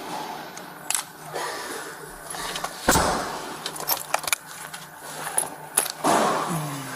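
A run of sharp clicks and knocks, with one heavy thump about three seconds in and a short sound falling in pitch near the end.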